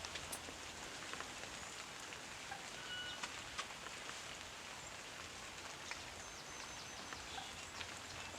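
Steady outdoor hiss with scattered light ticks, and a few faint, short, high bird notes, a quick series of them about six to seven seconds in.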